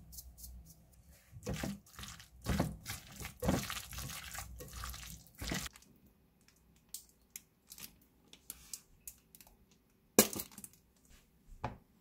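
A hand grinder clicking over a glass bowl, with chopsticks working through wet chopped tomato, onion and avocado. After that, a plastic squeeze bottle puts mayonnaise onto bread with scattered soft clicks, a sharper knock about ten seconds in and another near the end.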